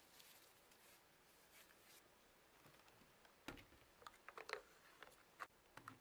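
Faint rustling of rubber gloves, then from about three and a half seconds in a quick run of light plastic clicks and knocks as the parts of a Dyson handheld vacuum are handled and fitted together.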